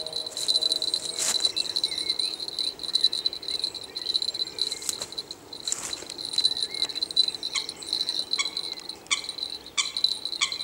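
A small bite bell clipped to a fishing rod tip, jingling as a hooked eel tugs on the line. It rings almost continuously at first; in the second half it comes as separate shakes, one every half second or so, as the fish is reeled in.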